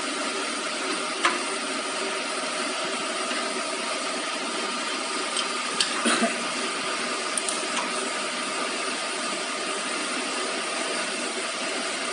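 A few sharp metal clinks as a spanner turns and knocks against the bolts of a sanding-belt tensioner arm: one about a second in, a cluster around the middle, and a couple more soon after. Behind them runs a steady machine noise with a faint hum.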